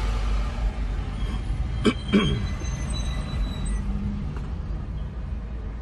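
Steady low rumble of slow road traffic, with trucks and buses idling and crawling in a jam. Two sharp clicks come close together about two seconds in.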